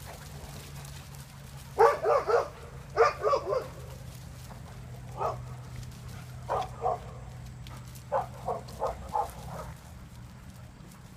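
Dog barking in quick runs of two to five sharp barks with pauses between, over a faint steady low hum.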